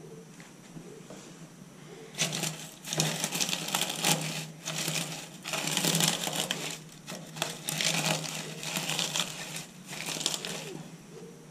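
Dry straw bedding being rummaged and pressed by hand, crackling and rustling in a series of bursts that start about two seconds in and stop shortly before the end.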